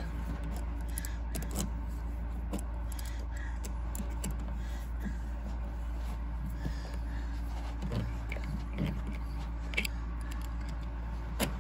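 Faint, irregular metallic clicks and scrapes of an adjustable wrench turning a 7/16-20 fine-thread tap in a seat belt bolt hole, chasing damaged, rusty threads. A sharper click comes near the end, over a steady low hum.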